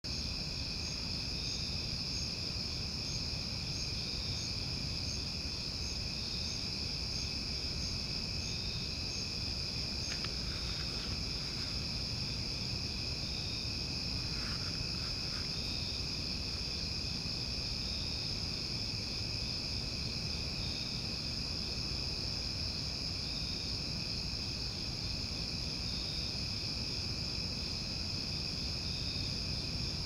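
Chorus of night insects, steady high-pitched trilling, with a higher chirp repeating about twice a second through the first third.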